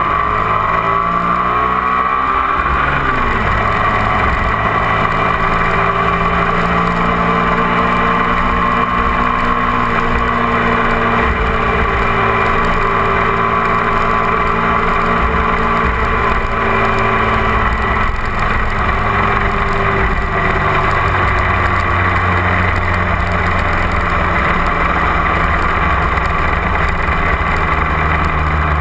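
A 250 cc twin-cylinder sport motorcycle's engine running under way. Its pitch falls over the first few seconds, then holds a steady cruise, with wind and road rumble underneath.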